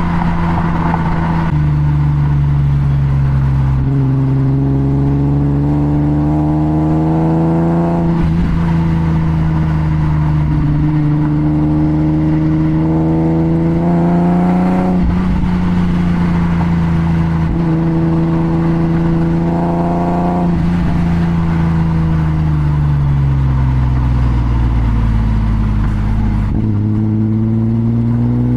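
BMW E34 M5's S38B36 3.6-litre straight-six running under load while driving, its exhaust note climbing in pitch as the car accelerates and dropping sharply at each upshift, about four times. Near the end the revs sink slowly as the car slows, then climb again.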